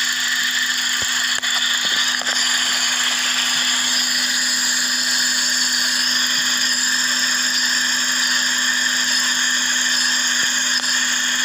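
Suzuki Swift engine running at idle, a steady hum under an even high hiss; the engine has an intake air (vacuum) leak that is behind its rough idle.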